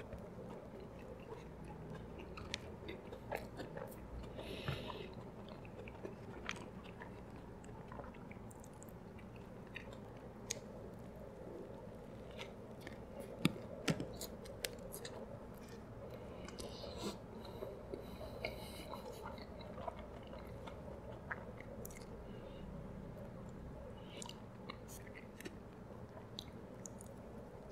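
Close-miked chewing of a Big Mac with extra tartar sauce: soft, wet mouth clicks and smacks throughout, with a couple of louder clicks about halfway through.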